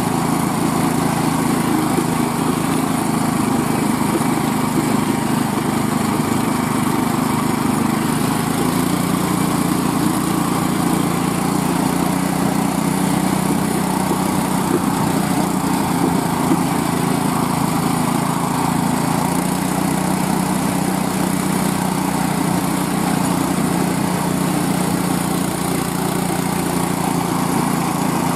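Small single-cylinder gas engine driving a homemade motorized snow sled, running steadily under load, its pitch shifting slightly now and then.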